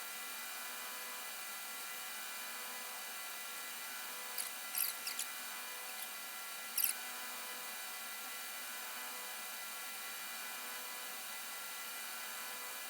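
Steady shop background hiss with faint hum tones, broken by a few light clicks: a cluster about four to five seconds in and one more near seven seconds.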